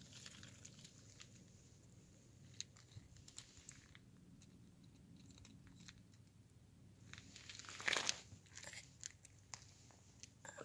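Domestic duck pecking and eating food off gravel, its bill making faint scattered clicks and crunches. A brief, louder rustle comes about eight seconds in.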